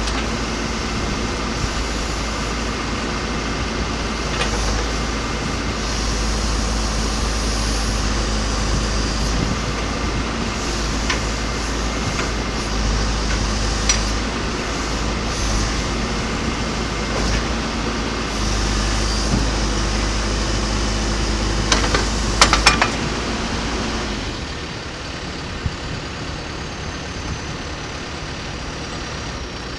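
John Deere 310SJ backhoe loader's four-cylinder turbodiesel running steadily, with a few sharp metallic clanks about 22 seconds in. About 24 seconds in the engine settles to a lower, quieter idle.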